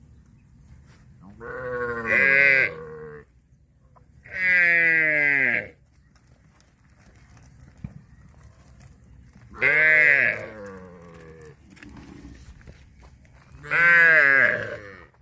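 Cattle mooing four times, each call loud, about a second or more long and falling in pitch.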